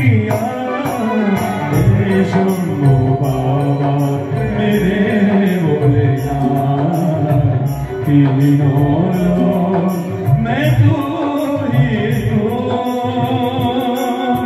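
Loud amplified live bhajan music: a male singer's melodic line over keyboard and a steady drum beat, played through a PA sound system.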